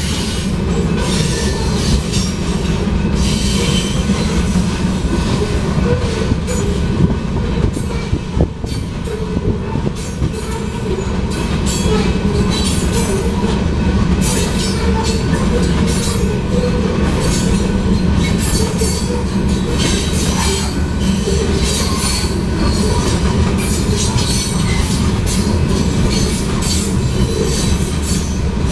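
Freight train of covered hopper cars rolling steadily past: a continuous rumble of steel wheels on rail, with frequent clicks and clacks as the wheels pass over the track.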